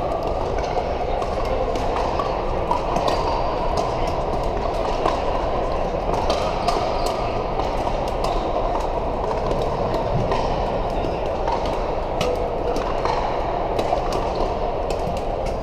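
Echoing din of a large indoor sports hall: many voices talking at once blend into a steady background, with frequent sharp pops of pickleball paddles striking the plastic ball on the surrounding courts.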